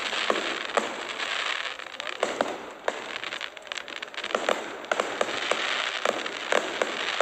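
Aerial fireworks bursting: a dense crackle with many sharp pops and cracks scattered throughout.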